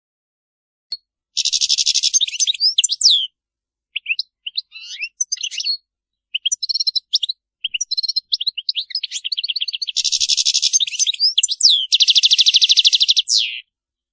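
Several European goldfinches twittering: rapid buzzy trills and short sweeping chirps in bursts, loudest about a second in and again from about ten seconds in.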